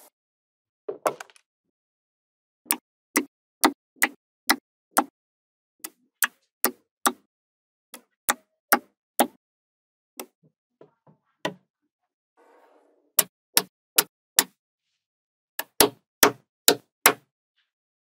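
Small magnetic balls clicking sharply as panels and strips of them snap against the model, in short runs of about two clicks a second with pauses between, and a faint rustle of balls shifting now and then.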